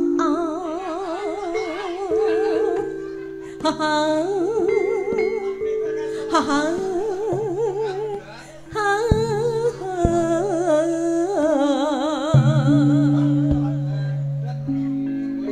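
Campursari band playing a langgam-style song: a singer holding notes with heavy, wide vibrato over held instrumental notes, with a few sharp drum strokes.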